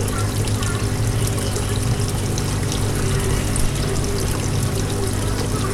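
Water trickling steadily into the tub over a constant low hum.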